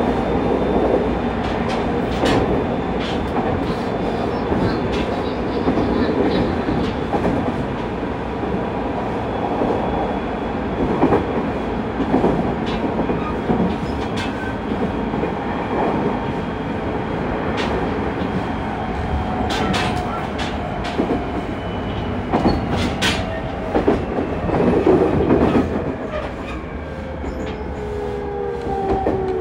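Onboard running sound of a JR East 209 series 2100-subseries electric train: a steady rumble of wheels on rail with scattered clicks over rail joints. In the last few seconds the motor whine falls in pitch as the train slows.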